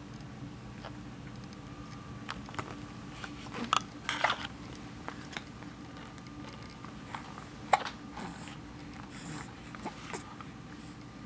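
Young baby hiccuping: short sharp hics about every four seconds, with softer clicks and mouth sounds in between.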